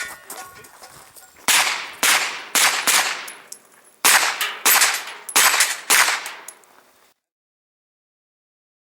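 Pistol caliber carbine firing about eight fast shots in two strings of four, each a sharp crack with an echoing tail; the sound then cuts out abruptly.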